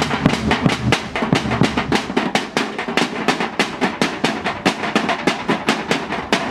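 Percussion ensemble drumming on tin cans, a fast, steady beat of sharp strokes, several a second, with deeper booming hits under it in the first two seconds.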